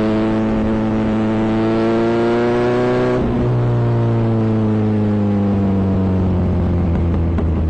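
Kawasaki Z900 inline-four motorcycle engine revving: its pitch climbs steadily for about three seconds, then slowly winds back down as the throttle is eased off.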